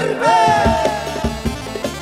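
Arab wedding folk music in the bedawiya style: a held, slightly sliding melody line over a steady drum beat, with the tail of a sung phrase at the very start.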